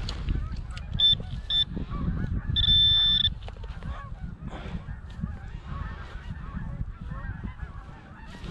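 Metal detector target tones: two short beeps a little after a second in, then a longer steady beep around the three-second mark, over a low rumble of wind or handling noise.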